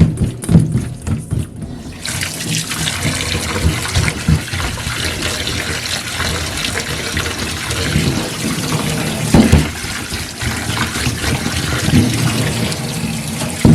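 Water running from a kitchen tap into a sink, starting about two seconds in after a short run of quick rhythmic rubbing, with hands moving shrimp about under the stream as they are rinsed.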